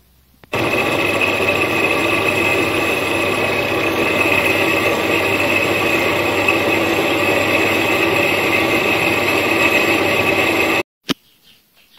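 Homemade metal lathe running steadily while machining a bearing housing, a constant mechanical whine with a high tone over it. It starts abruptly about half a second in and cuts off abruptly near the end.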